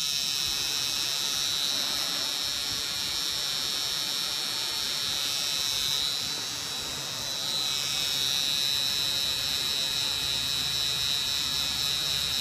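Electric permanent-makeup tattoo pen running with a steady high-pitched buzzing whine as the needle works the skin. About halfway through, the whine briefly drops in level and dips in pitch, then steadies again.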